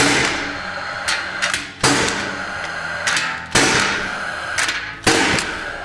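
Rawlplug R-SC40II gas-actuated nailer firing four shots about one and a half seconds apart, driving nails through a steel drywall profile into concrete. Each shot is a sharp crack with a ringing tail, with lighter clicks between shots.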